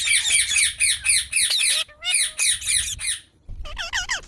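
Baby rose-ringed parakeet (Indian ringneck) squawking in quick runs of harsh, repeated calls, pausing briefly about three seconds in, then giving a few higher, bending calls near the end.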